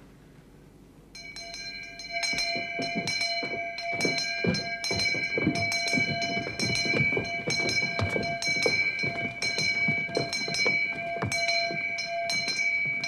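A handbell rung over and over, a steady clanging of quick repeated strikes, several a second, that starts about a second in.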